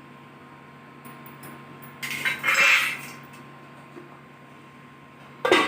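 Metal cookware clattering: a rattling scrape about two seconds in that lasts about a second, then a sharp clank near the end.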